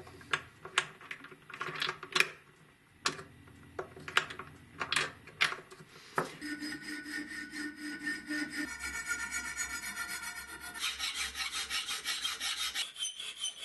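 Several light clicks and taps from small brass latch parts being handled. About six seconds in, a hand file starts working a thin brass plate clamped in a vise, in quick, even strokes that carry a ringing tone.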